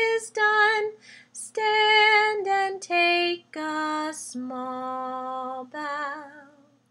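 A woman singing the end of a slow goodbye song, with a long held note near the end and a short last phrase that fades out.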